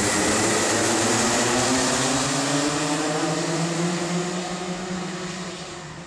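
A pack of Rotax Junior racing karts with single-cylinder 125 cc two-stroke engines goes past at race speed. Many engine notes overlap, some rising in pitch, and the sound fades steadily over the last couple of seconds as the field pulls away.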